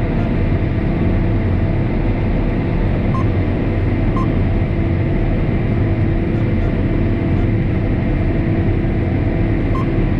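A steady, unbroken mechanical drone like a running engine or farm machine, with a few short, faint beeps over it.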